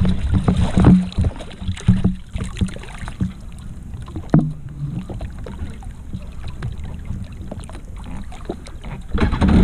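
Water sloshing and lapping against a stand-up jet ski's hull, with irregular knocks and rubbing as a swimmer grips and handles the craft from the water.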